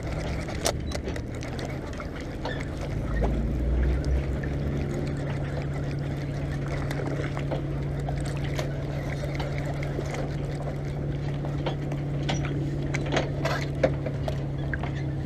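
A baitcasting reel being cranked steadily to bring in a hooked fish, over water lapping and slapping against a moored boat's hull. A steady low hum runs under it from about three seconds in, with scattered small clicks and knocks.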